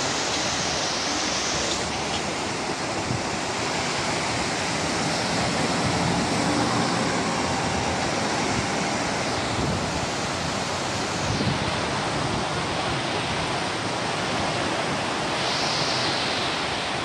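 Floodwater rushing through a river barrage and past its concrete piers: a loud, steady wash of water noise.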